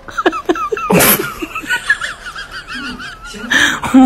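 Laughter: a few short bursts, then a long high, wavering snicker.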